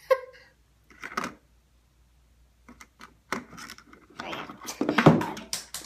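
Close handling noises: rubbing and scratching in short irregular bursts, with a sharp knock at the start and the loudest scrapes about five seconds in.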